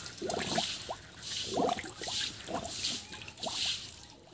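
A calf drinking from a basin of water, slurping and sucking in short wet gulps about twice a second.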